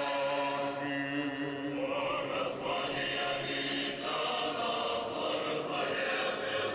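Choir singing Russian Orthodox liturgical chant, several voices holding long sustained notes together.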